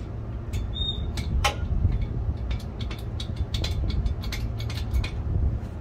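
Hydraulic jack being pumped to raise the nose of a bus transmission: a run of irregular sharp clicks over a steady low rumble.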